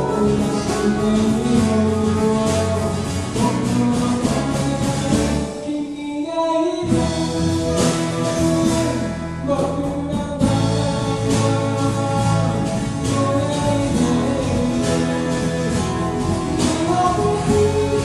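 A live band plays a song with a sung vocal line. About six seconds in the band drops out for roughly a second, then comes back in full.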